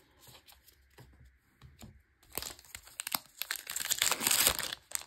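Foil wrapper of a Magic: The Gathering booster pack being torn open and crinkled, starting about two seconds in and loudest near the end, after a few faint ticks.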